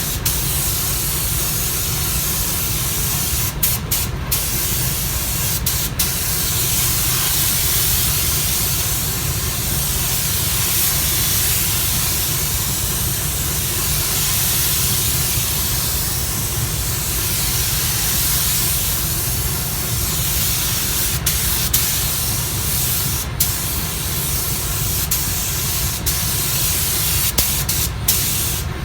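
Compressed-air spray gun spraying paint onto a car bumper: a steady hiss over a low rumble, cut by a few short breaks where the trigger is let off.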